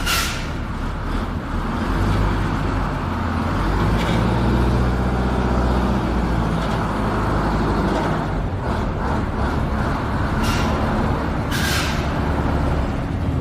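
Bus engine running with a low rumble that revs up about four seconds in, then settles. Near the end come two short bursts of air hiss, like a bus's air brakes releasing.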